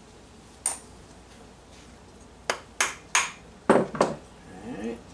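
Small metal carburetor parts clinking and tapping in six sharp clicks, one early and the rest in a quick cluster, as the float bowl is unscrewed and its screws and parts are set down. A brief low rising sound comes near the end.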